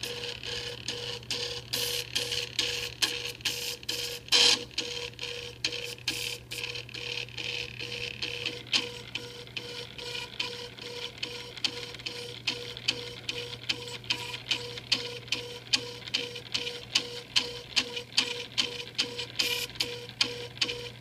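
Open-frame 3D printer running a calibration print: its stepper motors whine as the print head and bed move back and forth, with regular sharp clicks about two to three times a second over a steady low hum.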